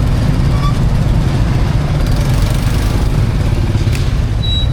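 Steady low rumble of street traffic and running engines.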